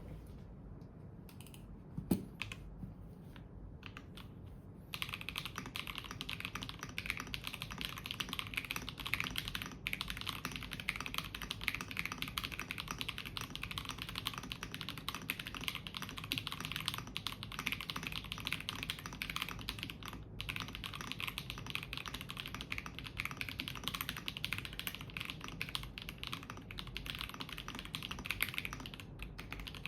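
Mechanical keyboard with a polypropylene plate and Outemu Lotus switches being typed on: a few scattered keystrokes, then steady fast typing from about five seconds in.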